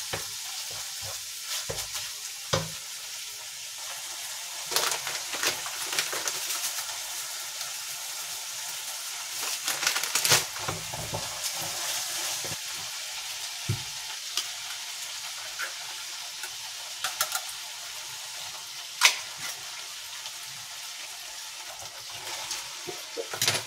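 Minced meat sizzling steadily in a frying pan, with a wooden spatula stirring and scraping it and knocking against the pan now and then.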